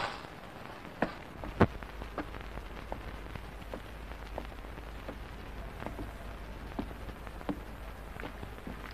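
Footsteps climbing a stairwell: a sharp tap every half second to a second, over a low steady hum that starts about a second and a half in.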